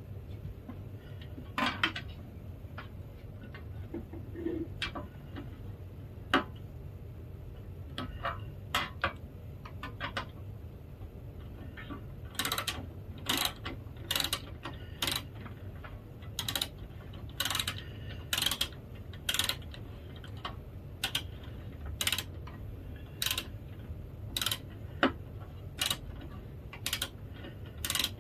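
Clicks and small knocks of tools and plastic parts as an HP printer is taken apart, scattered at first and coming about once or twice a second from about halfway in, over a low steady hum.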